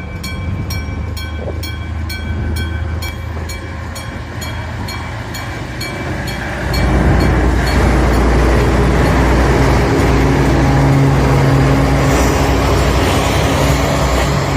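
Japanese level crossing warning bell ringing in a fast repeating ding, about three a second. Midway a diesel-hauled freight train arrives with a loud low rumble and steady engine drone that covers the bell.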